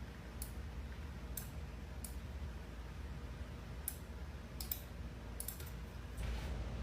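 About a dozen scattered sharp clicks, some single and some in quick pairs, over a low steady hum.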